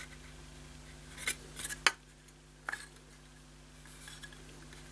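Light clicks and taps of a hard plastic toy car body shell being handled and picked at with fingers: about five sharp ticks spread over the first three seconds, over a faint steady hum.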